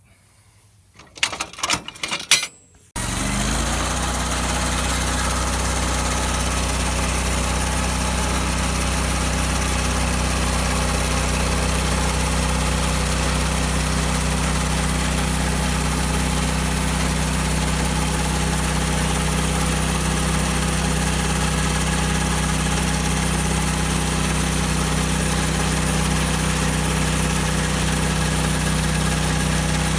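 A few sharp knocks, then about three seconds in a bandsaw mill's engine comes on abruptly and settles into a steady run at constant speed.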